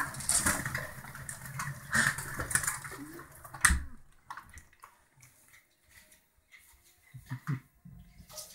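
Pigeons' wings flapping in a flurry at the window ledge, with one sharp knock about three and a half seconds in. After that it is much quieter, with a few scattered light taps.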